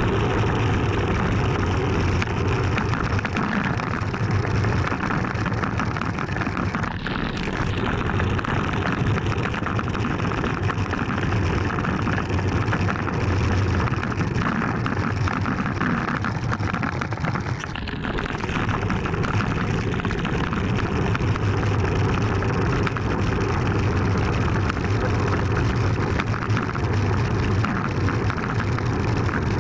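Steady rush of wind over an action camera's microphone, mixed with tyre and road rumble, from a bicycle descending a rough paved road at speed. It eases briefly twice, about seven and eighteen seconds in.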